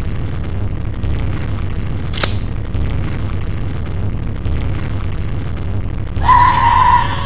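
Horror-trailer sound design: deep booming pulses about once a second, with a sharp hit about two seconds in. Near the end a man lets out a loud high-pitched scream that lasts about a second.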